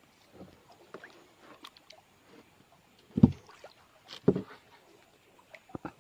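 Scattered light rustling and small knocks, with two louder dull thumps about three and four seconds in.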